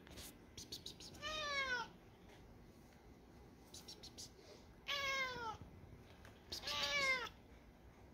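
Domestic cat meowing three times, each meow falling in pitch.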